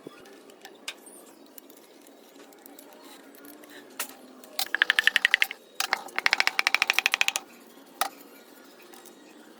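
A power tool hammering rapidly in two bursts, the first about a second long and the second about a second and a half, with a slight rising whine in the first. A couple of single sharp knocks come before and after.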